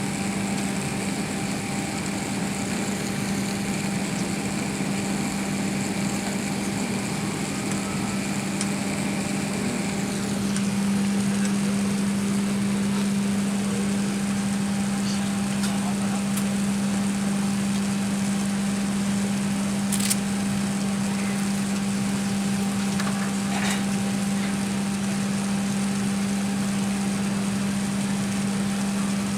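Airbus A380 cabin noise during takeoff: a steady engine and airflow hum with a strong low drone, growing a little louder about a third of the way through. A couple of faint clicks sound later on.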